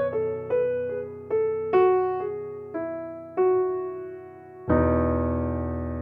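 Background music: a slow piano melody of single notes, each fading before the next, followed by a full chord struck about three-quarters of the way through that rings on.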